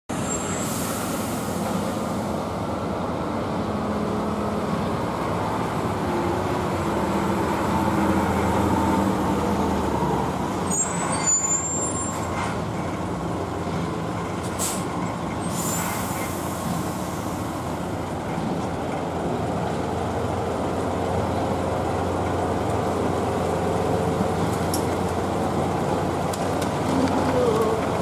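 Diesel engines of queued concrete mixer trucks running steadily. An air brake hisses twice, once near the start and again about halfway through.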